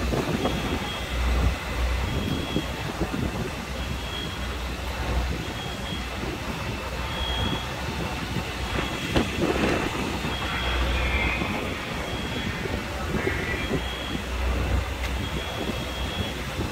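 Fire truck engine running with a steady low rumble, while a short high electronic beep repeats about once a second.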